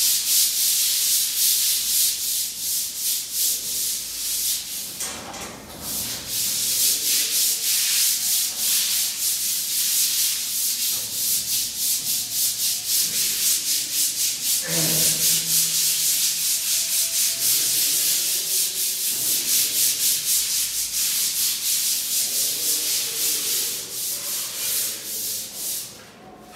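Sandpaper scraping by hand over dried wall putty, two people sanding at once in quick back-and-forth strokes, smoothing the putty coat level before primer and paint. The scratching thins out near the end.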